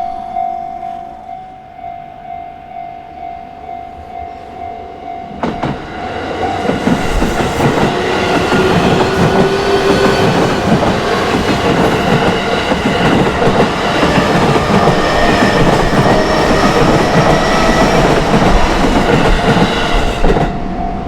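Japanese level-crossing alarm bell ringing in a steady repeating pattern. About five seconds in, a JR Ome Line train arrives and runs over the crossing for about fifteen seconds, loud enough to drown the bell. The bell is heard alone again as the train clears near the end.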